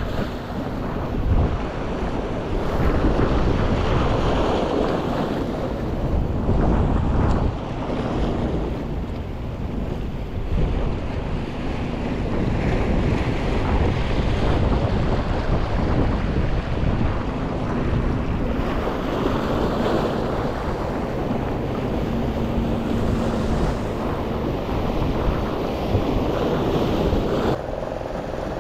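Wind buffeting the microphone over sea waves washing against the jetty rocks, the noise swelling and easing unevenly.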